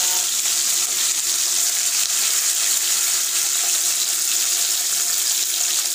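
Fish slices shallow-frying in hot oil in a kadai: a steady, hissing sizzle of bubbling oil.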